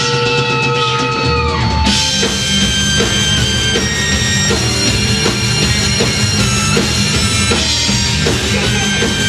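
Live rock band playing loud amplified music with electric guitar, keyboard and drum kit. The first couple of seconds are held notes; then the drums and bass come in and the full band plays on a steady beat.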